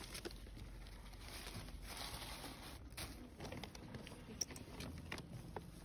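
Paper bags and plastic carrier bags rustling and crinkling as they are handled, with scattered light clicks and taps. There is one sharp tap about four and a half seconds in.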